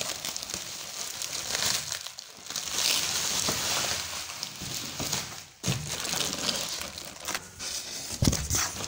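Clear plastic wrapping crinkling and rustling as it is pulled and torn off a cardboard box by hand, with a thump near the end.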